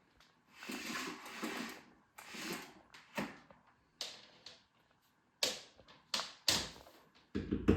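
Handling noises: short rustles in the first few seconds, then a string of separate sharp clicks and knocks with short silences between them.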